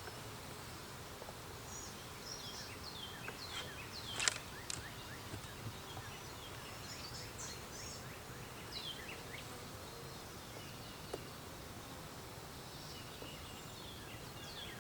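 Small birds chirping and calling, many short high falling chirps, over a faint steady low hum from the bees of an opened hive. A single sharp click about four seconds in.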